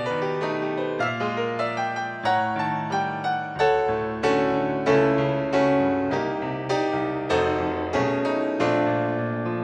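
Digital stage piano playing a slow jazz ballad on its own, chords and melody notes struck every half second to a second and left to ring and fade.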